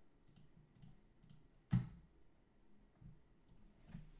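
A handful of faint, scattered computer mouse clicks, with one louder click about two seconds in.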